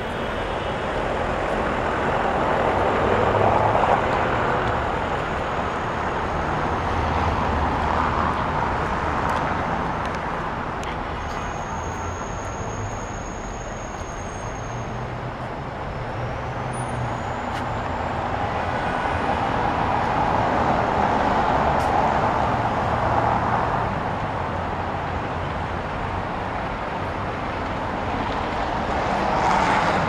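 City street traffic: vehicles passing one after another, the noise swelling and fading several times.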